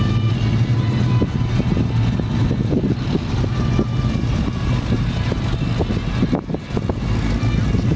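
Engines of classic American muscle cars and an old pickup truck driving slowly past in a line, a steady low engine drone with a short dip about six and a half seconds in.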